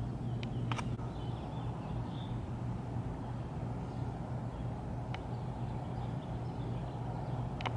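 Steady low outdoor background hum, with a few faint short clicks and high chirps.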